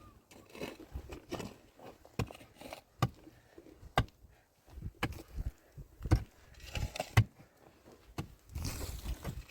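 A series of irregular sharp knocks and taps, a few spaced about a second apart and louder than the rest, with faint rustling between them.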